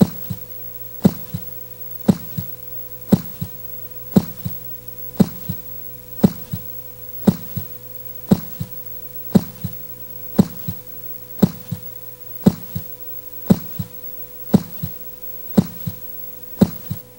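Heartbeat-like double thumps, a strong beat and a softer one just after, repeating steadily about once a second over a constant low electronic hum.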